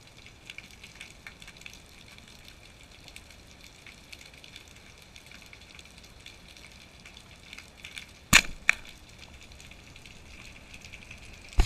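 Underwater through a GoPro housing: a faint crackling background, then about eight seconds in a single sharp loud crack with a smaller one just after, the Pathos Laser 120 speargun being fired. At the very end, loud noisy bursts begin as the camera breaks the surface.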